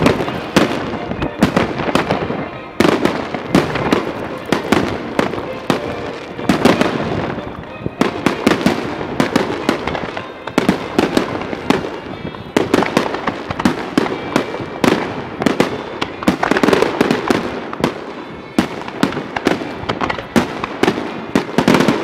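Fireworks display: aerial shells bursting in a rapid, unbroken barrage of loud bangs, several a second and overlapping.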